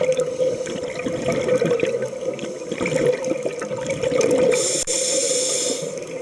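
Underwater sound of a scuba diver breathing through a regulator: continuous bubbling and crackling, with a high hiss about four and a half seconds in that lasts just over a second.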